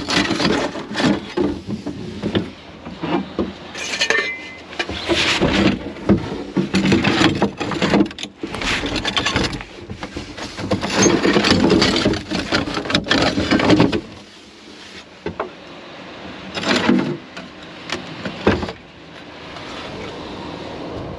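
Clattering and knocking of assorted junk being handled and rummaged through, with clinks of glass and metal, dying down to a quieter rustle about two-thirds of the way through.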